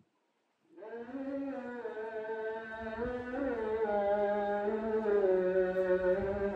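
Background music starting after a brief silence: a slow melody of held notes that slide between pitches over a sustained low note, growing louder.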